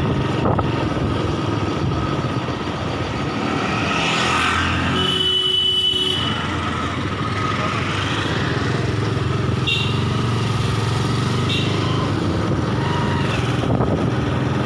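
Small vehicle engine running steadily while riding along a street, with road noise, and a brief high tone about five seconds in.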